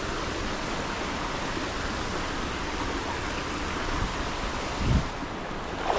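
Stream water running steadily, with one dull thump about five seconds in.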